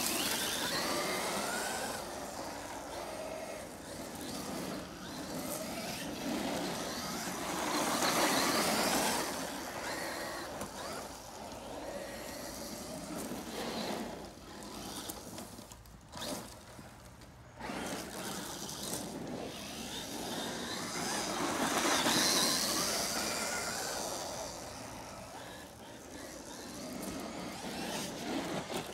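Traxxas electric RC truck's motor whining up and down in pitch as it speeds up and slows, with its tyres crunching over sand and grit. The loudest passes come about eight and twenty-two seconds in, with a quieter spell around sixteen seconds.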